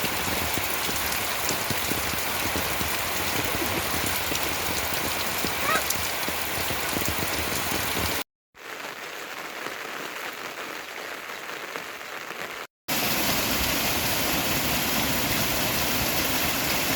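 Steady rain falling, heard in three stretches cut apart by two brief silences; the middle stretch is quieter.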